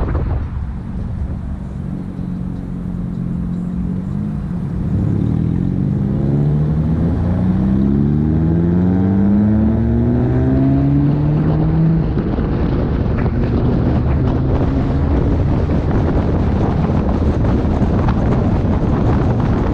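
Car engine accelerating, its pitch rising for several seconds in the middle, over steady road and wind noise.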